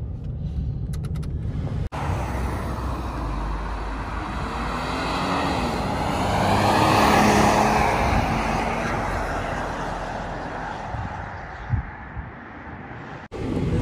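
A 2009 Toyota Tacoma pickup drives past, its engine and tyre noise swelling to a peak about seven seconds in and then fading as it goes away. Before that come about two seconds of engine and road noise inside the cab.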